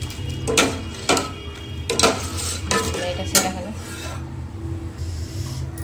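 Steel ladle stirring milk in a stainless-steel pot, scraping and knocking against the pot about five times, over a steady low hum.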